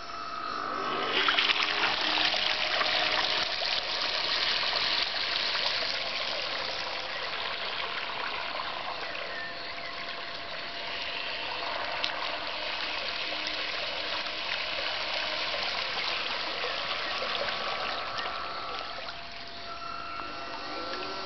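Water rushing and splashing as a homemade radio-controlled bait boat's propeller and hull churn through the lake. It builds about a second in as the boat pulls away, is loudest over the next few seconds, then runs on more evenly.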